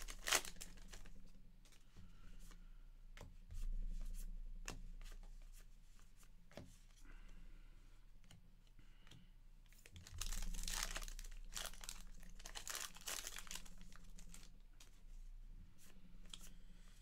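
Trading-card pack wrapper being torn and crinkled while the cards are slid out and flicked through by hand; a sharp rip right at the start, then rustling bursts a few seconds in and again about ten seconds in.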